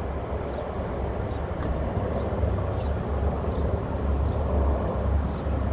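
Distant military helicopters flying over: a low, rumbling rotor and engine drone that swells and fades.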